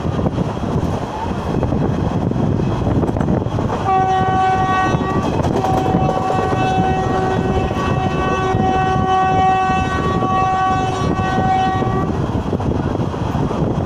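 Passenger train running at speed, heard from an open coach window or door as a steady rush of wheel and wind noise. About four seconds in, the locomotive's horn sounds a short blast, then a long one lasting about six seconds.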